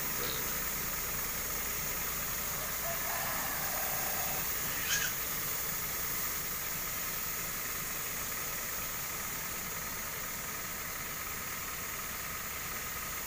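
Kawasaki power sprayer's small petrol engine running at a steady speed, with the hiss of its spray. A short high squeal cuts in once about five seconds in.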